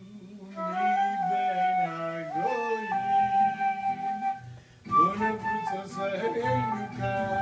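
Flute playing a melody over acoustic guitar accompaniment. It holds one long note in the middle and breaks off briefly about four and a half seconds in before going on.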